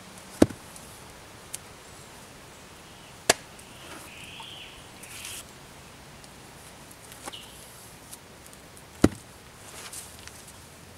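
Three sharp knocks of a stone slab and wooden tools being handled and set down on hard ground: one near the start, one about three seconds in, one near the end.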